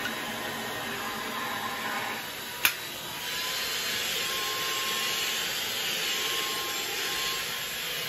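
Ultenic U10 cordless stick vacuum's 250 W brushless motor running steadily with a thin whine. A single sharp click comes about two and a half seconds in, and the running sound grows louder just after it and stays so.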